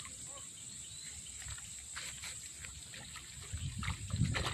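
Quiet pond-side outdoor ambience with a steady faint high-pitched hiss and a few soft ticks; low rumbling noise rises from about three and a half seconds in.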